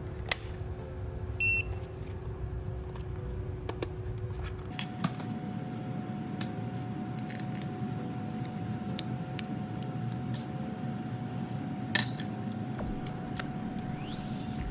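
A short electronic beep about a second and a half in, with scattered small clicks over a steady low hum.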